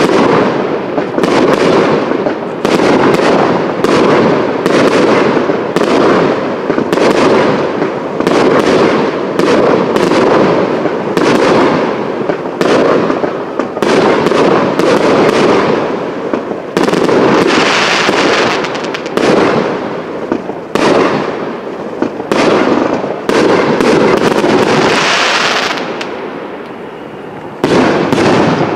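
Professional fireworks display: a rapid, unbroken run of aerial shell bursts about two a second over a constant crackle, with stretches of louder hiss two-thirds through and again a little later. Near the end it dies down briefly, then one sharp bang.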